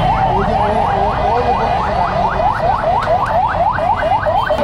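Electronic siren in a rapid yelp: a short rising whoop repeating about four to five times a second, over the noise of a street crowd.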